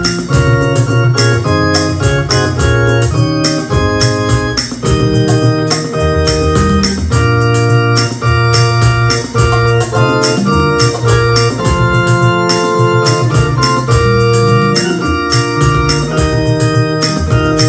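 Electronic keyboard playing a hymn arrangement: sustained organ-like chords over a bass line, with a steady beat of high percussive ticks.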